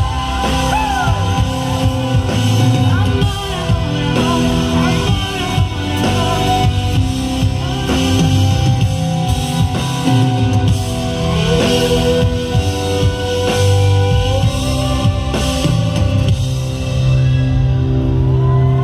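Live pop-rock band playing with a female lead vocal over drum kit, guitar and bass. Near the end the drums fall away and the band holds a sustained chord.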